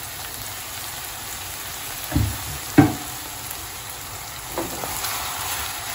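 Minced meat and grated carrot sizzling steadily in a frying pan while a wooden spoon stirs them, knocking against the pan twice a little after two seconds in and once more softly near the end.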